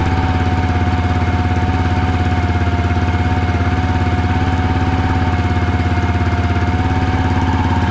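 Bultmotors Jumbo 700 ATV engine running at a fast cold idle with its variator cover open, with a steady high whistle over the engine's pulsing. The whistle comes from the CVT variator, whose belt is worn and shedding dust, and which the owner judges finished.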